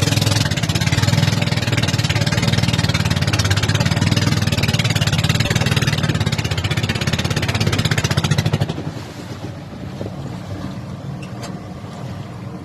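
Boat engine running steadily under power, with a wash of wind and water noise; about nine seconds in it is throttled back and the sound drops to a much quieter steady level.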